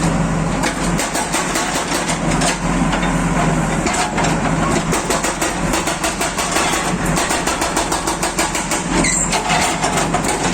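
Diesel engine of a JCB backhoe loader running steadily, with many sharp clicks and knocks through it.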